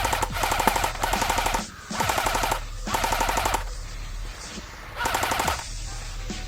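AK-47-style airsoft electric gun firing several rapid full-auto bursts. The longest burst lasts about a second, and the last one comes about five seconds in.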